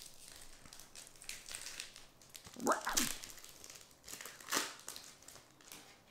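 Foil booster-pack wrapper crinkling and being crushed in several short bursts as a pack of trading cards is opened and handled, with a brief falling voice-like sound near the middle.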